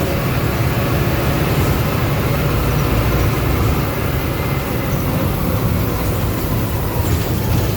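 Agrale MA 15.0 midibus (Marcopolo Sênior Midi body) running steadily: a low, even drone of engine and running noise with a faint steady whine over it, from a differential that is howling very loudly.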